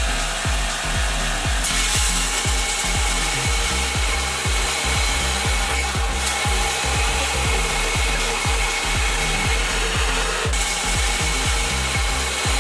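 A 3-horsepower belt grinder with a well-used 36-grit belt grinding a half-inch steel round bar pressed hard into it, a steady harsh grinding hiss that changes abruptly a few times. Background music with a steady beat plays underneath.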